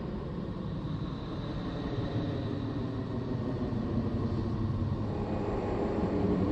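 Deep, steady rumbling drone with faint wavering tones above it, growing a little louder toward the end: a space-sound track presented as NASA Voyager's recording of the planet Neptune.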